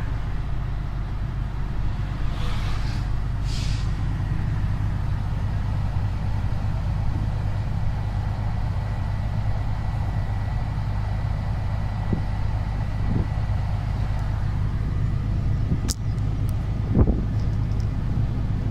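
Heavy truck's diesel engine running steadily under way, with two short hisses about three seconds in and a knock near the end.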